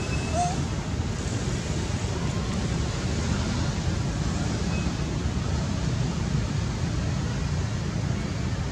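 Steady low rumble and hiss of wind buffeting the microphone, with a faint short chirp about half a second in.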